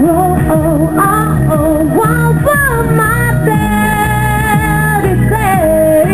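A woman sings a pop song live into a microphone through a PA system, over a backing track with guitar. Her melody wavers at first, then she holds one long steady note from about halfway and slides down to a lower note near the end.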